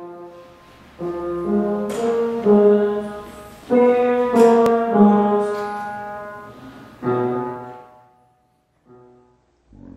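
Sterling upright piano played in a slow run of chords, each struck and left to ring, the last one dying away about eight seconds in; two short, soft chords follow near the end.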